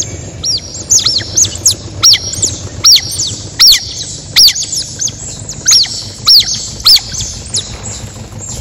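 A bird calling over and over: short, loud, arching squawks, one or two a second, that stop about a second before the end.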